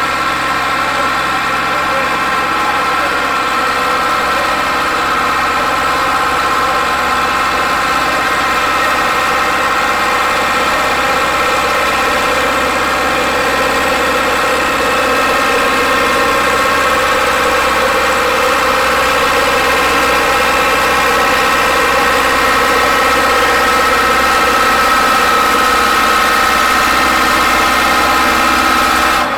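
International Harvester 785XL tractor's diesel engine running hard at steady revs while pulling a weight-transfer sled, getting slightly louder as the pull goes on and dipping a little in pitch near the end as it comes under more load.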